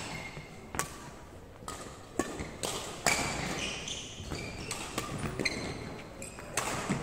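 Badminton rally: sharp racket-on-shuttlecock hits at irregular intervals, with short rubber-sole squeaks on a wooden court floor, each hit ringing briefly in a large hall.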